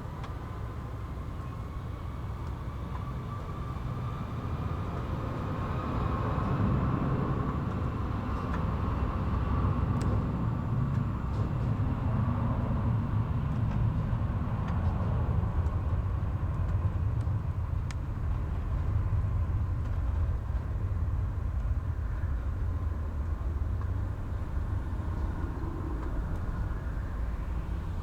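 Airbus A330 jet engines at takeoff thrust: a deep rumble that builds over the first several seconds and holds, with a whine that slowly falls in pitch as the aircraft passes.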